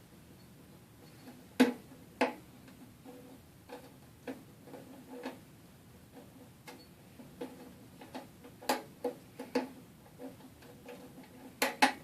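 Small metallic clicks and taps of a hook pick and tension wrench working the wafers of a Master Lock double-sided eight-wafer lockbox, one wafer at a time. The clicks come at irregular intervals, a few much louder, with a quick cluster near the end.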